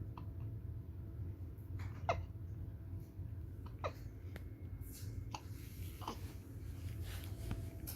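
Newborn baby hiccupping: short, sharp hiccups about every two seconds, three in all, over a steady low background rumble.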